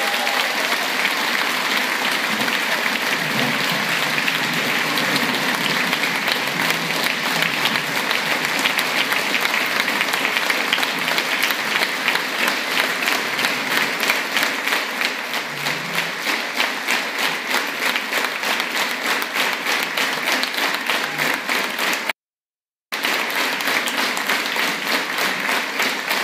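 Large audience giving a standing ovation: dense, sustained applause that settles into rhythmic clapping in unison in the second half. The sound cuts out completely for under a second near the end.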